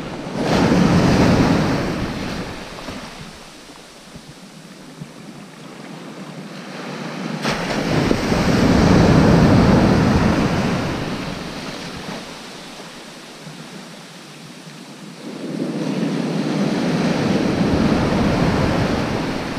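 Sea waves breaking and washing up a sandy beach, with no shingle rattle. Three surges about eight seconds apart, each swelling up and falling away.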